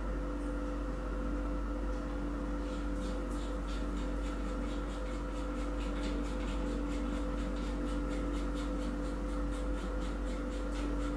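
A steady low hum, with faint, irregular light clicking from about three seconds in, as the laser's probe heads are handled and fitted onto the light guide arm.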